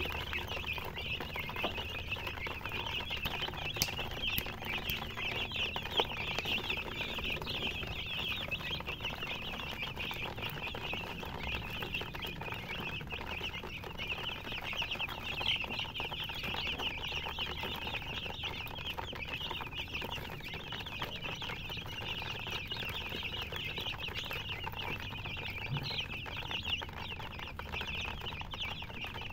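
A brood of chicks peeping continuously, a dense chorus of short, high chirps overlapping without pause.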